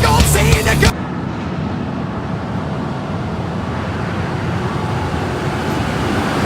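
Music cuts off about a second in and gives way to a bulldozer working: a steady, dense engine rumble and machine noise with no clear rhythm.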